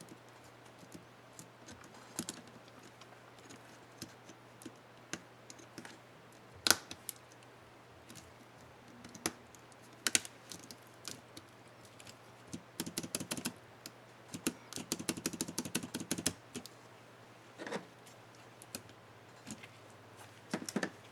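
HP DM4-1000 laptop keyboard keys being pressed: scattered single clicks, then a run of quick repeated presses in the middle.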